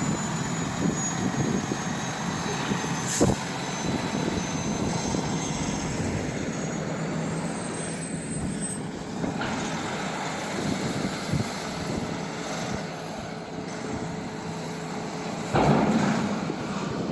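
Heavy diesel truck running past with a steady engine rumble and road noise, with a sharp click about three seconds in and a louder knock near the end.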